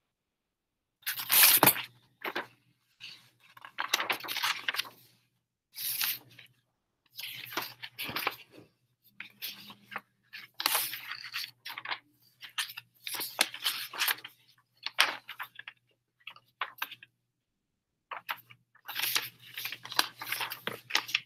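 Intermittent rustling and crinkling handling noises close to the microphone, in irregular bursts of one to two seconds with silent gaps between them.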